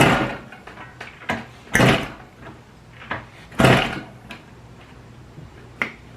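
Kick-starting of a 1972 Yamaha LS2 two-stroke twin, three hard kicks about two seconds apart, each a short clanking rush as the engine is spun over without catching.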